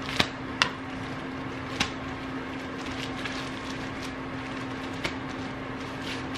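Handling noise of a shower cap being pulled on and adjusted over the head: a few sharp clicks and rustles, three in the first two seconds and one more later, over a steady low hum.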